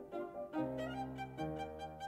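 Instrumental background music: a melody over held low notes that change about half a second in and again partway through.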